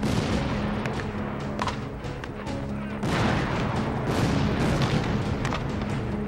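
Civil War-style muzzle-loading field cannons firing, with a loud boom about three seconds in that rumbles on for two seconds, and scattered sharp shots. Background music with steady held notes plays throughout.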